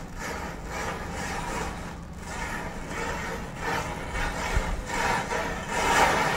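Chain of matchsticks burning, the match heads flaring one after another in a steady rasping, crackling hiss that swells near the end.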